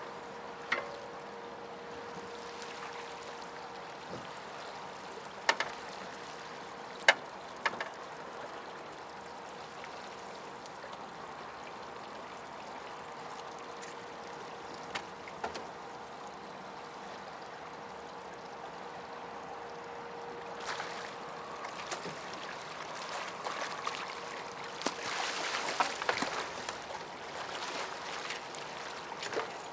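A hooked fish thrashing and splashing at the surface right beside a small aluminium boat, building up over the last several seconds. Before that, a steady river hiss and a few sharp knocks.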